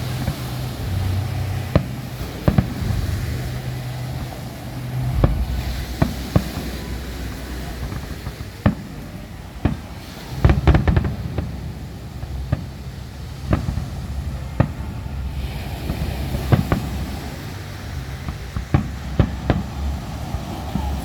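Aerial fireworks bursting: a string of sharp bangs at irregular intervals, with a dense cluster about halfway through, over a steady low rumble.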